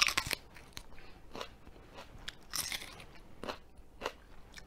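Close-up bite into a raw mini sweet pepper, a sharp crunch at the start, followed by crunchy chewing in irregular bursts about once a second.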